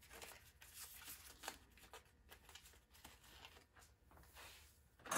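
Faint rustling and small ticks of small parts being handled on a workbench, ending in one sharper click.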